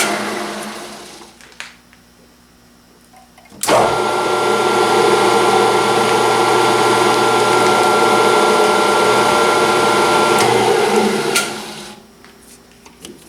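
Metal lathe running, then coasting to a stop. After a short pause it switches on abruptly, runs steadily with a high whine for about eight seconds, and winds down again near the end.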